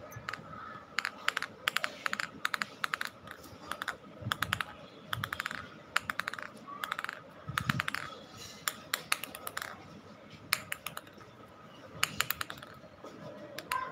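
Bursts of rapid, sharp clicking and tapping, several quick clicks at a time, repeating every second or so.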